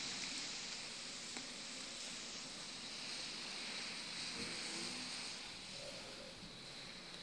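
Steady hiss of distant street traffic on wet asphalt, with faint short tones about six seconds in.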